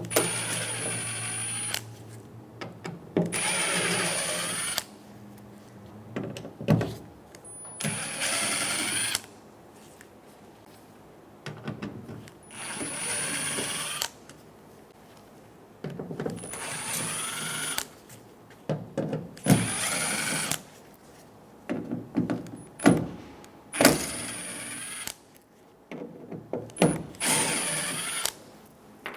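Cordless drill-driver with a T15 Torx bit running out the tailgate cover's screws in short runs, one to two seconds each with pauses between, its motor pitch shifting as each screw backs out.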